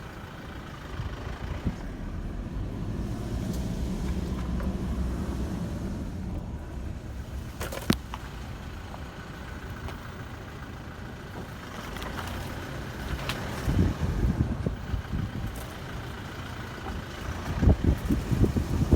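Low rumble of wind buffeting the microphone, gusting harder in the last few seconds, with a single sharp crack about eight seconds in.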